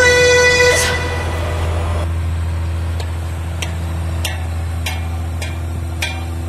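Background music fades out over the first second or two, leaving an MB Trac tractor's diesel engine running steadily. From about halfway in, a short sharp tick repeats roughly every half second.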